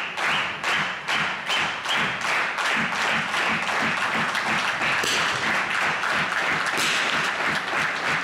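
Spectators clapping together in a steady rhythm, about two to three claps a second, with looser applause filling in over it through the second half.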